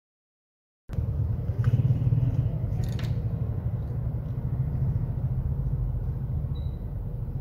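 Silence for about the first second, then a steady low rumble of background noise with a couple of faint clicks.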